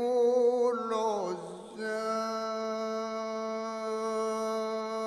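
A singer's voice in an Arabic song: a short wavering phrase that falls in pitch, then, from about two seconds in, one long steady held note.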